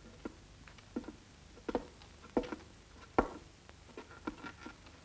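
Footsteps on wooden floorboards: irregular taps and knocks about every half second, the loudest about three seconds in.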